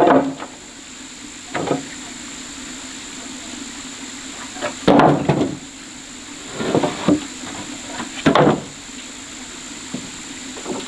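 Irregular knocks and clatter of wooden supports being struck and handled, about five separate blows spread unevenly, over a steady background hum.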